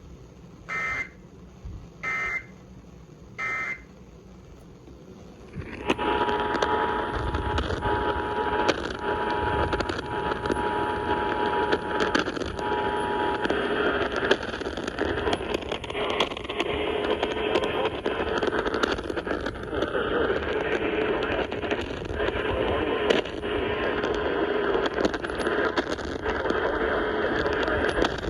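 Emergency Alert System signals on radio receivers. First come three short warbling data bursts, the SAME end-of-message code closing a weather radio warning. About six seconds in, static-laden AM radio reception starts, carrying the EAS two-tone attention signal, a steady dual-pitched buzz held for about seven seconds before only crackling static remains.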